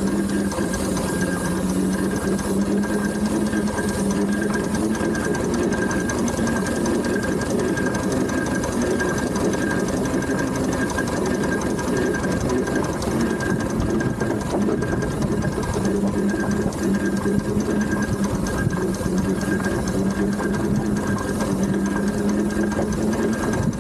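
Steam traction engine running, heard from on board: a steady, dense mechanical clatter of its gearing and motion over a continuous low hum.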